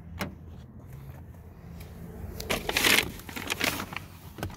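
A click from the car door as it is opened, then rustling and shuffling of clothes against the seat as someone climbs into the driver's seat of a 2010 Lexus IS 250. The rustling is loudest about three seconds in.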